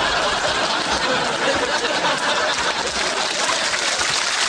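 Studio audience laughing and clapping: a dense, steady crowd noise.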